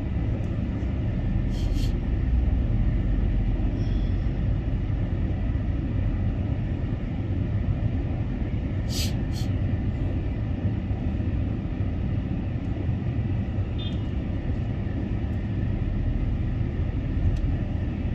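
Steady low rumble of a car's engine and tyres heard from inside the cabin while driving slowly, with a few short sharp clicks, one about two seconds in and two close together about nine seconds in.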